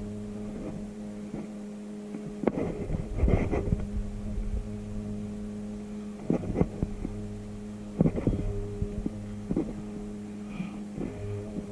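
A steady low mechanical hum runs throughout, broken by scattered short sharp knocks and clicks, several of them in pairs.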